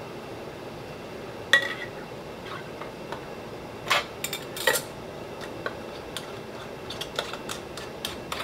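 Metal clinks of a canning lid being fished from a pan of hot water with a magnetic lid lifter and set onto a glass jam jar: a sharp, briefly ringing clink about a second and a half in, a few more clinks around four to five seconds, then lighter ticks near the end, over a steady background hiss.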